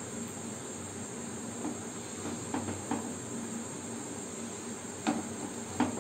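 A few light knocks and scrapes of a metal mesh strainer and wooden spatula against a pan as boiled vegetables are scooped out of the water, over a steady high-pitched hiss.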